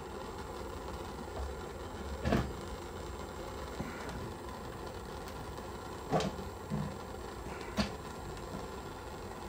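Steady hiss of a butane torch flame heating a utility-knife blade, with a knock about two seconds in and a few short clicks and creaks later as a hot blade is worked through a plastic cover.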